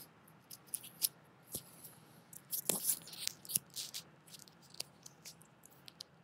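Faint, irregular clicks and crackles, thickest about three seconds in.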